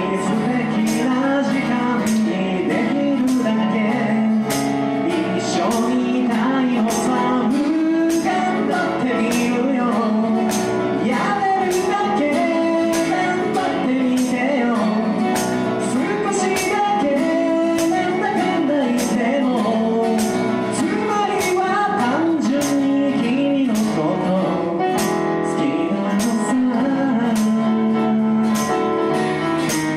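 Live acoustic pop song: sung vocals over a strummed acoustic guitar and a Yamaha keyboard, with a steady strumming beat.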